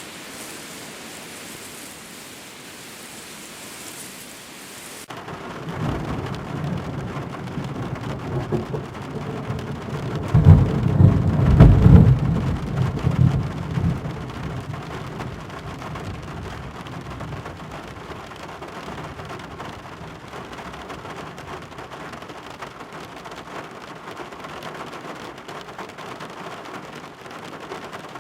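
A steady hiss cuts off abruptly about five seconds in. Steady rain follows, with a roll of thunder that builds to a loud, deep rumble about ten to fourteen seconds in and then dies away, leaving the rain.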